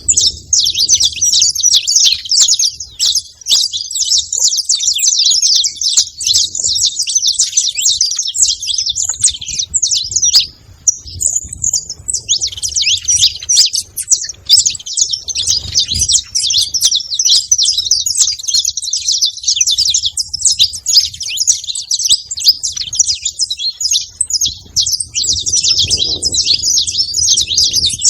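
Saffron finch (canário-da-terra) chirping in a rapid, nearly unbroken stream of high notes, with a brief pause about ten seconds in.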